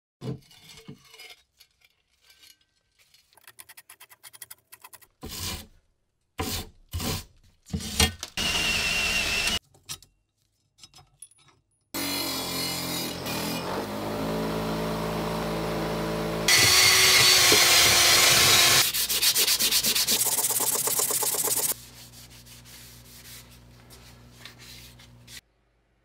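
Short scrapes and knocks of hand work on a rusty steel shovel, then a bench grinder running steadily with its wire wheel scrubbing rust off the shovel blade. The grinding is loudest for about five seconds in the second half, then drops to a faint motor hum before stopping.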